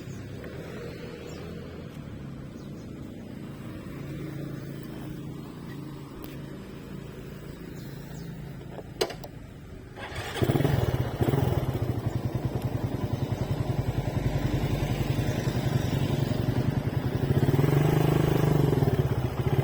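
Motorcycle engine running quietly at low revs, with one sharp click about nine seconds in. About ten seconds in the engine gets much louder, with a fast even pulsing beat, and it rises and falls in pitch near the end as the bike gets under way.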